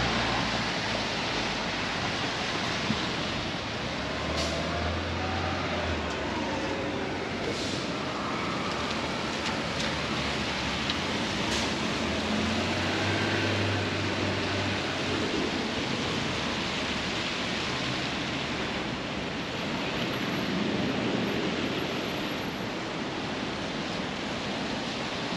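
Steady rain on a city street, an even hiss, with the low rumble of passing vehicles swelling twice, a few seconds in and again about halfway. A few sharp taps cut through it.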